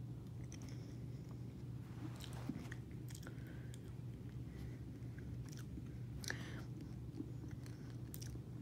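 Someone chewing and crunching a hard Tic Tac mint in the mouth: faint, scattered small crunches and mouth clicks.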